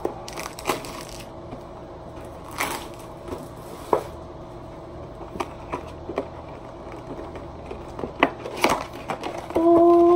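Cardboard card box being torn and pried open: the paperboard flaps crackle and rustle, broken by several sharp snaps and clicks as they give way.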